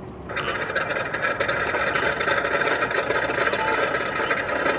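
An RC Corsair's onboard sound system plays a simulated radial engine. It switches on abruptly and runs at a steady idle.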